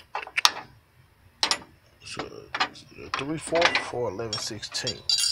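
A 3/4 inch wrench clicking and clinking against metal as a new coolant temperature sensor is tightened into the engine, in a string of short, irregular clicks.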